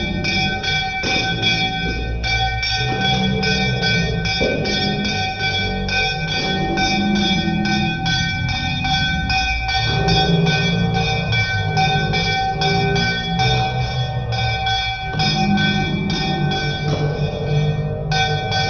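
Brass puja hand bell rung fast and steadily, about four strokes a second, its ringing tones sustained throughout, over an uneven lower background sound.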